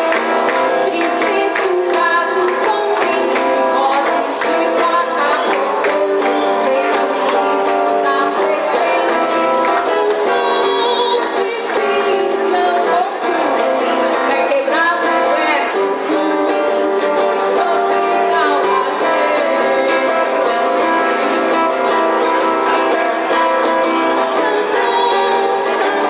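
Live music: a song with a woman singing over instruments and a steady beat of high percussion, in a large room.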